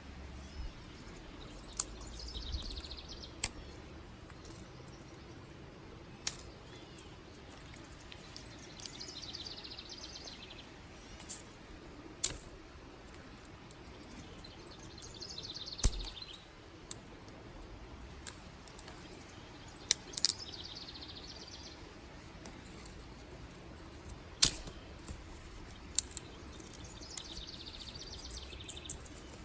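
Dry sticks snapping, one sharp crack every few seconds, about nine in all, two of them close together near the middle. A bird repeats a short high trilled song roughly every six seconds behind them.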